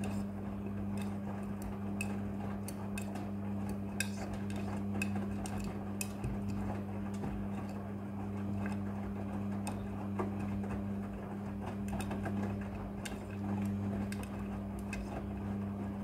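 Front-loading washing machine in its wash cycle: the motor hums steadily as the drum turns, with many light clicks and taps as the wet load tumbles inside.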